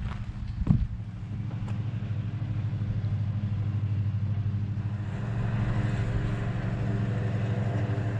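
Steady low hum of an idling diesel engine, with a single short knock just under a second in.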